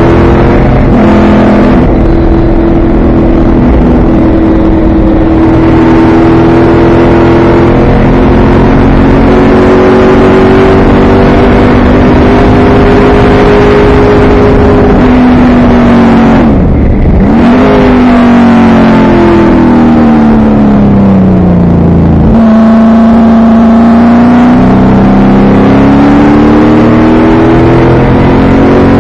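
Race car engine heard loud from inside the cockpit, pulling hard with its pitch climbing through upshifts about two and seven seconds in. Past halfway it lifts off sharply, then falls in pitch as the car brakes and downshifts for a corner, and picks up and climbs again near the end.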